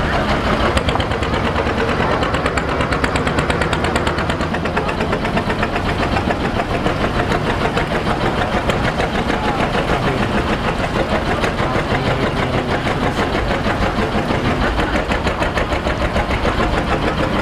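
A wooden boat's inboard engine running at low speed while docking, with a fast, even knocking beat.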